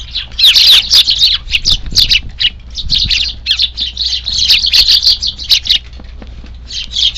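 A flock of Eurasian tree sparrows chirping and chattering, many short calls overlapping; the calls thin out briefly about six seconds in, then pick up again.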